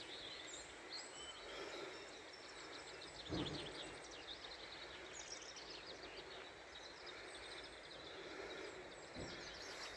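Birds singing, a busy run of quick high chirps, over a steady outdoor hiss. A single thump about three seconds in.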